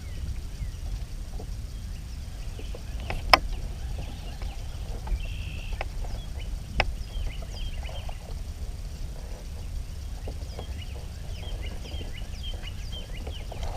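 Steady low rumble with two sharp knocks, one about three seconds in and another about three and a half seconds later, and many small quick high chirps scattered throughout.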